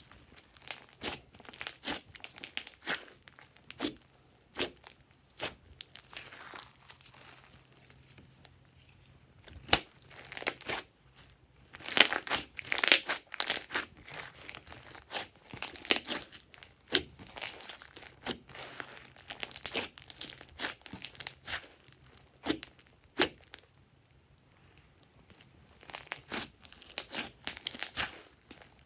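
Glossy bead-studded slime being squeezed, stretched and folded by hand: irregular sticky crackling and popping as its air pockets collapse, with busier spells around the middle and near the end and quieter pauses between.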